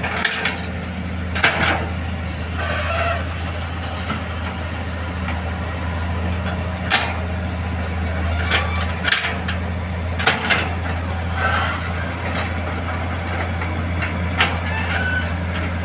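Kobelco SK200 hydraulic excavator digging: its diesel engine runs steadily under load, with sharp knocks from the bucket and arm at irregular intervals.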